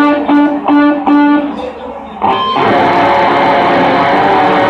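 Electric guitar through an amplifier: the same short note or chord picked four times, then about two seconds in a loud chord struck and held, ringing on.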